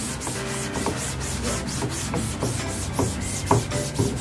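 Cloth scrubbing back and forth over a silkscreen's mesh with screen wash, wiping clogged ink out of the stencil; a quick, even rubbing at about four strokes a second.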